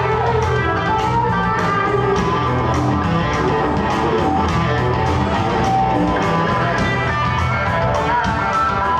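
Live electric blues band playing an instrumental passage without vocals: electric guitar lines over bass guitar and drums keeping a steady beat.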